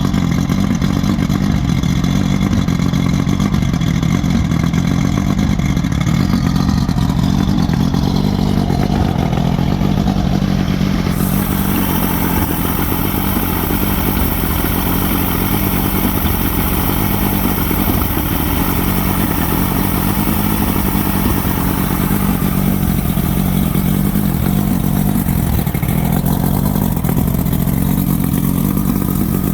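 Engine running steadily at an even speed. The owner is asking whether its fault is a carburetor sneeze or a misfire.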